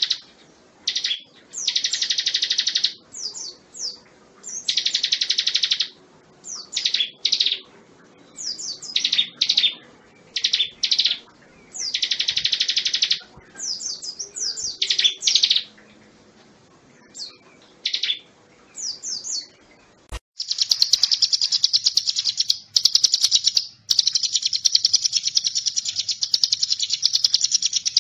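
Ciblek gunung, a mountain prinia, singing: fast trilled phrases about a second long, repeated with short chirps between them. About two-thirds of the way through a click marks a splice into a denser, almost unbroken trill.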